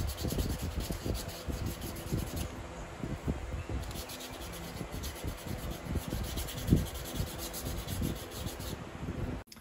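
Hand sanding of a small wooden block, the fence of a homemade marking gauge, rubbed against sandpaper in quick back-and-forth strokes to smooth and round it for the hand. The scratching eases briefly about two and a half seconds in, then resumes, and cuts off suddenly near the end.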